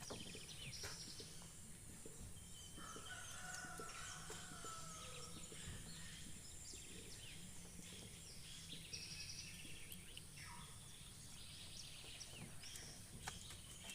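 Birds calling faintly outdoors: many short, high chirps throughout, and one longer drawn-out call from about three to five seconds in, of a fowl kind such as a distant rooster.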